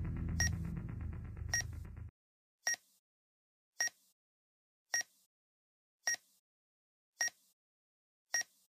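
Short electronic beeps, evenly spaced about one a second, each with a high, thin two-pitch tone. A low background rumble runs under the first two seconds and cuts off suddenly, leaving only the beeps in silence.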